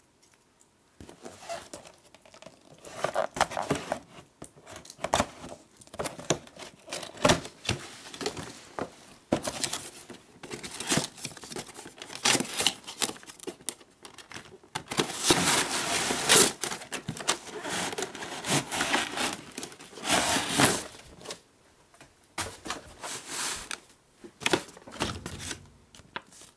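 Cardboard toy box being opened by hand: flaps pulled open and torn, with rustling, scraping and crinkling of the cardboard packaging in irregular bursts. The handling is busiest and loudest in the middle.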